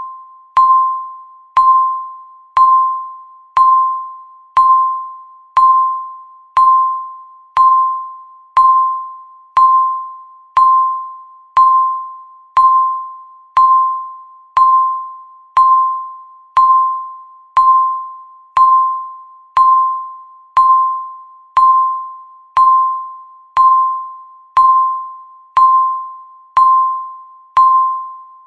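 Countdown timer's electronic tick: a short, ringing beep of one pitch, sounding once a second in a steady rhythm, each one fading quickly before the next.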